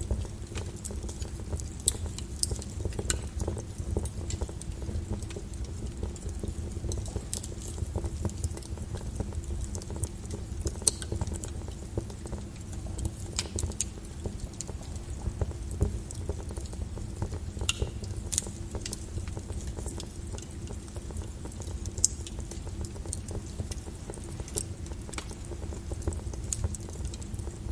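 Wood fire crackling, with frequent irregular sharp pops over a steady low rushing, mixed with rain on a window.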